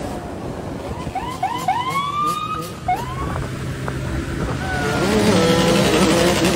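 Police siren giving several short rising whoops in quick succession, then a longer rising wail, followed by motorcycle engines revving and growing louder over the last couple of seconds.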